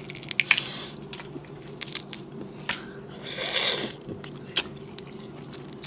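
Crawfish shells cracking and crackling as they are peeled by hand, with a longer sucking slurp about three seconds in as a piece is eaten from the fingers, and a sharp crack of shell near the end.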